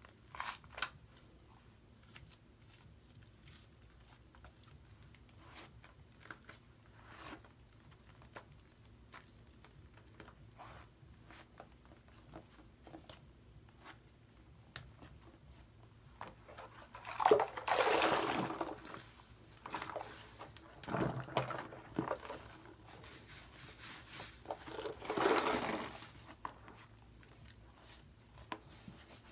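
Hands squishing and kneading thick shaving-cream foam, with soft crackling and popping of the foam. It turns into louder wet squelches in three spells, about halfway through and again toward the end.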